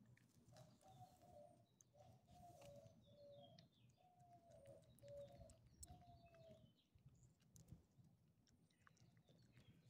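A dove cooing faintly in a series of short, low notes, some falling at the end, that stops about two-thirds of the way through, over a faint low background rumble.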